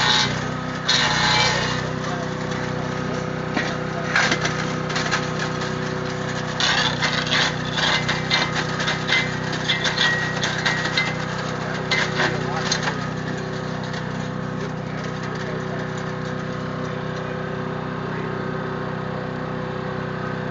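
Echo Bear Cat SC2170 chipper shredder running steadily on its engine, with bursts of crackling and snapping as branches are fed in and shredded. The bursts come at the start and again thickly through the middle; after that the machine runs on empty.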